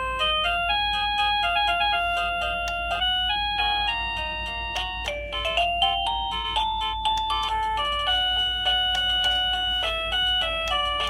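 Liztek wireless doorbell receiver playing one of its built-in melody tunes: an electronic jingle of short, steady notes stepping up and down in pitch, several a second, with a steady low hum underneath.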